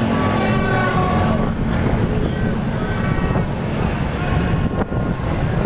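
Wind buffeting the microphone of a moving motorbike, over the low running of many motorbike engines in a dense procession, with scattered short tooting tones from horns.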